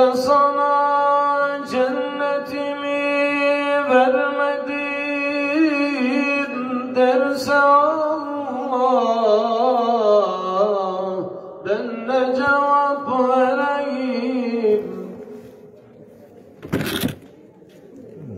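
A man singing a Turkish devotional hymn solo into a microphone, unaccompanied, in long held notes with wavering ornaments. The singing stops about fifteen seconds in, and a brief noise follows near the end.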